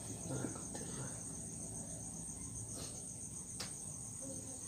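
Crickets chirring in a steady, high, continuous trill. Two faint ticks come about three seconds in.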